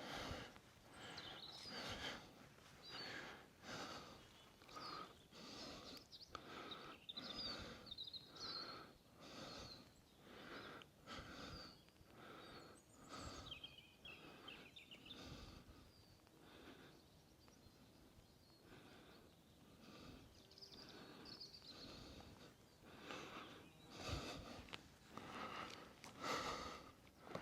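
Faint, regular footsteps on a hill path, about one a second, with birds chirping here and there.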